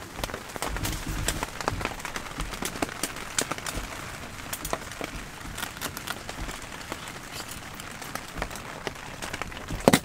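Rain falling on a tent, heard from inside: a dense, irregular patter of single drops ticking over a steady hiss, with one sharper knock near the end.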